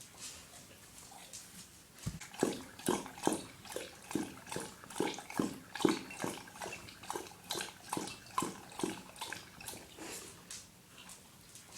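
A dog lapping water from a bowl in a steady rhythm of about two to three wet laps a second. The laps are loudest from about two seconds in until about nine seconds in, and softer before and after.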